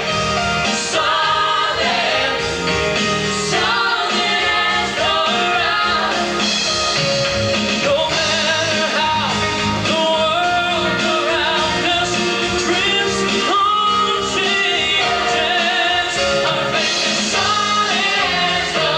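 Music with singing: a sung melody over a steady instrumental backing.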